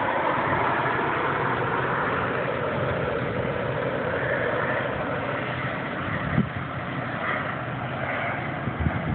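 Turbine engines of a large radio-controlled scale jet flying past overhead: a steady jet roar with a high whine that slides down in pitch during the first second. A brief thump about six seconds in.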